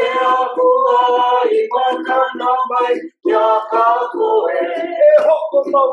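A group of men and women singing a Hawaiian mele together, in phrases with long held notes.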